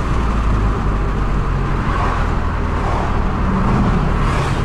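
Engine and exhaust of a 2009 Subaru Forester 2.5X, a naturally aspirated 2.5-litre flat-four fitted with MagnaFlow mufflers and a cold-air intake, running with a steady low rumble as the car drives, with road noise underneath.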